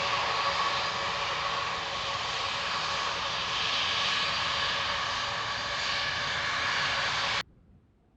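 Jet engines of a large airliner running at takeoff thrust: a loud, steady roar with a steady whine through it. It cuts off abruptly a little over seven seconds in.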